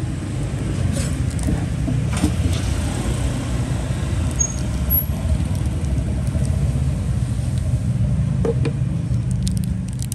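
Steady low rumble of road traffic going by, with a few faint clicks.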